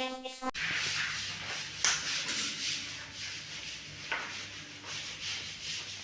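Music cuts off about half a second in. It is followed by steady rubbing and scraping, with a couple of light clicks, from hands working on a basin diverter fitting.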